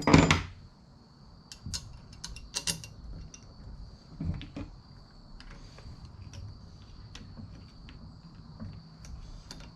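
Small hard parts of a steering-wheel spinner knob and its clamp clicking and knocking as they are handled and fitted, with a loud knock at the start and a thud about four seconds in. A steady high insect trill, like crickets, runs underneath.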